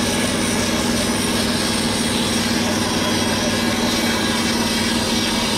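Large bandsaw running steadily with a low hum, its blade cutting through a thick timber frame piece for a wooden boat.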